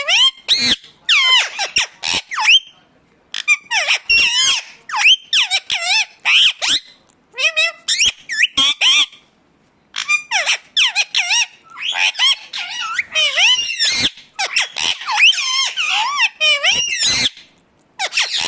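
Indian ringneck parakeet chattering and calling: quick, high chirps that rise and fall, in bursts broken by a few short pauses.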